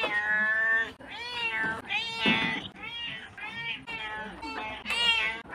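Domestic cat meowing over and over, about eight calls in quick succession. The first call is long and fairly level, and the rest are shorter meows that rise and fall in pitch.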